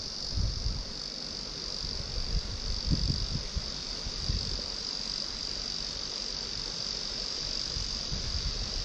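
Steady high-pitched insect chorus, with a few low thumps about three to four seconds in.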